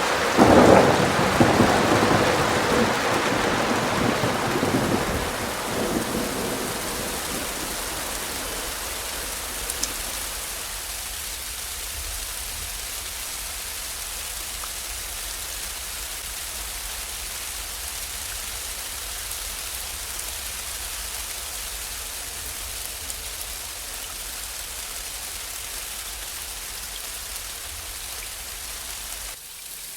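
Steady rain falling, with a loud crack of thunder just after the start that rumbles away over the first six seconds or so.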